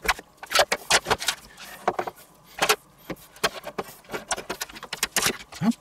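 Rotisserie spit rod and its steel meat fork clinking and rattling as they are worked onto a stuffed whole chicken, striking the stainless tray: a run of sharp, irregular metal clicks and knocks.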